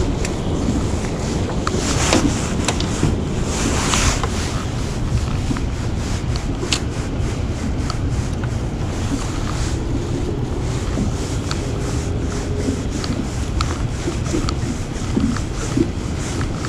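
Wind buffeting the microphone over water lapping against a small fishing boat, a steady rushing noise. Two brief louder rushes come about two and four seconds in.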